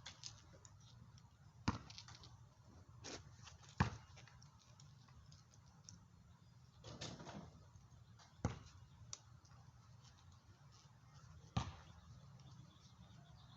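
Scattered sharp clicks and knocks of hand tools working a homemade bolt-and-washer press as a shock absorber's metal bushing sleeve is pressed out, four of them loud and a few fainter, with a short scrape about seven seconds in, over a faint low hum.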